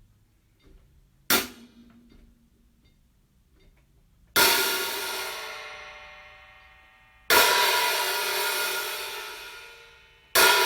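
Diril 14-inch Primitive hi-hat cymbals struck one stroke at a time. A short, quickly damped stroke comes about a second in, then three loud strokes about three seconds apart, each with a long ringing wash that fades away; the third comes near the end.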